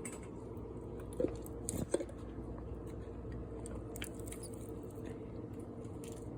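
Hands squishing and pulling sticky, gooey slime in a bowl: soft wet clicks and crackles, with two sharper sticky pops about a second and two seconds in, over a steady low hum.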